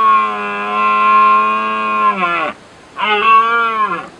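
Red deer stag roaring: a long, drawn-out call that drops in pitch and breaks off about two and a half seconds in, then a second, shorter roar that cuts off suddenly at the end.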